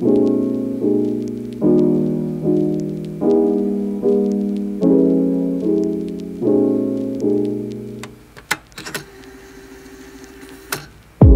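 Background piano music: chords struck about every second, each fading before the next. The music stops about eight seconds in, leaving a quieter stretch with a few sharp clicks, and starts again loudly right at the end.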